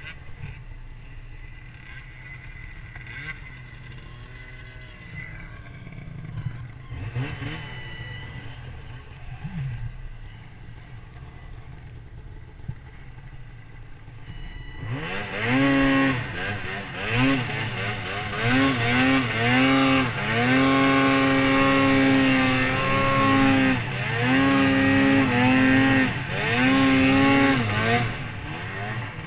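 2018 Arctic Cat Mountain Cat snowmobile's two-stroke engine, running at part throttle for the first half, then opened up about halfway through: it revs loud and high, climbing, holding and dipping several times with the throttle, and falls back near the end.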